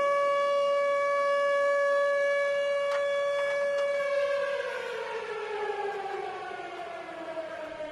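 Warning siren wailing: it holds one steady tone for about four seconds, then its pitch slides slowly down and begins to rise again near the end.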